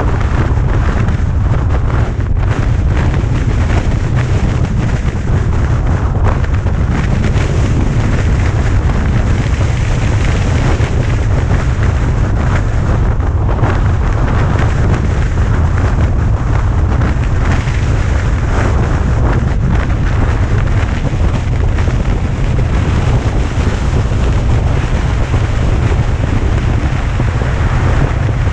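Heavy wind buffeting the microphone of a moving vehicle's camera, a loud, steady low rumble that hardly lets up.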